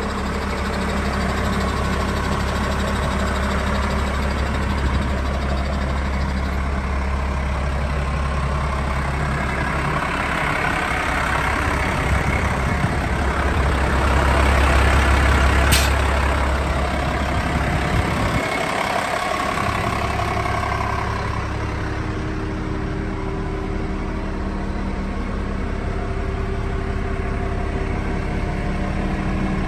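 Case IH MXU 115 tractor's diesel engine idling steadily, a little louder for a few seconds around the middle.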